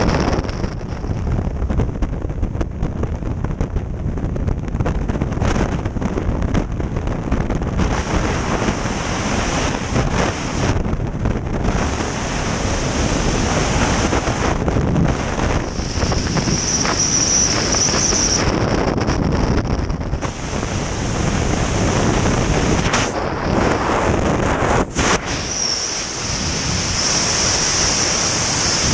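Freefall wind rushing and buffeting over the skydiver's camera microphone, a steady loud roar of noise.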